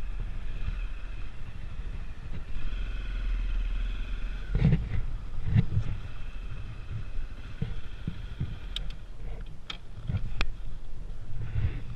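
A vehicle moving along, heard close up: a steady low rumble with a faint whine, and from about halfway on a series of sharp knocks and thumps.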